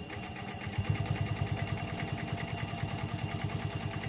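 Pfaff 130 sewing machine running and sewing a wide zigzag stitch, its needle and feed going in a fast, even rhythm. It speeds up about a second in, then holds a steady sewing speed.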